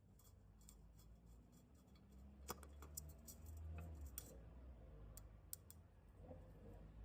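Near silence with a low hum and a few faint sharp clicks, the first two about two and a half and three seconds in, two more a little past five seconds.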